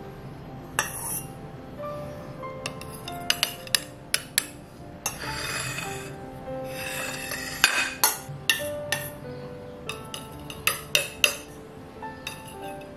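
Metal spoon clinking against a saucepan and china plates as sauce is spooned out: many sharp clinks, coming thicker in the second half. There are a few longer scrapes of a plate on the stone counter, and music plays throughout.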